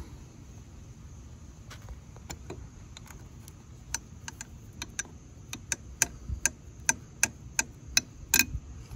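Small, sharp metal clicks from snap ring pliers and a snap ring being worked onto a motorcycle hand lever's pivot pin. They come sparsely at first, then about two to three a second in the second half, with the loudest near the end.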